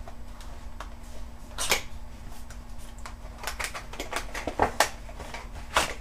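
Irregular clicks, taps and rustles of an SSD's retail packaging being opened and handled, over a faint steady hum.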